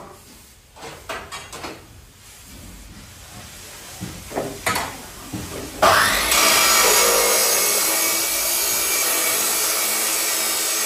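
Makita marble cutter switched on about six seconds in, its motor spinning up quickly and then running steadily and loud. A few clicks and knocks come before it starts.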